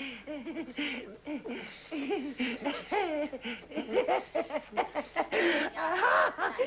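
A drunk man laughing uncontrollably: a long fit of quick, repeated laughs that rise and fall in pitch.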